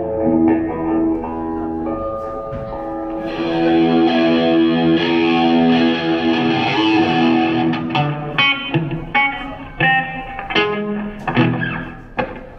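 Electric guitar played loud through a Marshall half-stack amplifier: held notes and ringing chords for the first several seconds, then a run of short, choppy chord hits with gaps between them.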